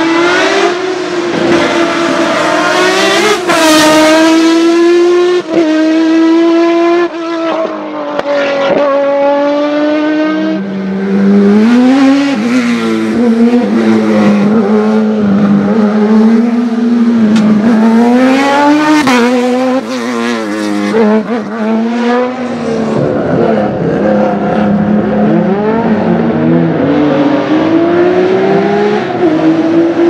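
Racing car engines at full throttle on a hillclimb, each rising in pitch and dropping sharply at gear changes. About ten seconds in, a lower-pitched engine takes over, revving up and down repeatedly through shifts.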